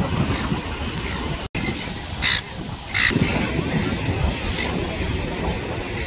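Two short, harsh squawks from silver gulls, a little after two seconds and again at three seconds, over a steady low rumble of breaking surf. The sound cuts out for an instant about a second and a half in.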